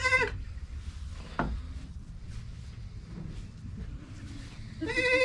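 Young Boer goats bleating: one short bleat at the start and a louder, longer bleat near the end.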